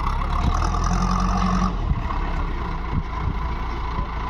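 Heavy vehicle engine running steadily, with a stronger, higher note for the first second and a half and a few short knocks.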